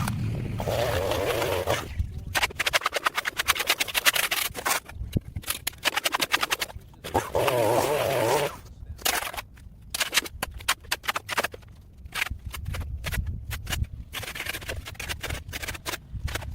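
A small two-stroke string trimmer engine runs with a wavering whine at the start and again for a second or two around seven to eight seconds in. Between these stretches come rapid, irregular runs of sharp clicks, knocks and scrapes.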